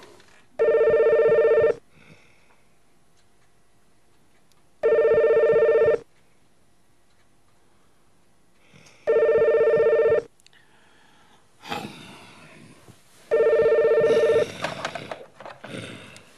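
Telephone ringing four times, each ring about a second long with a pause of about three seconds between rings: a call coming in to a sleeping man. A few fainter, irregular noises follow the last two rings.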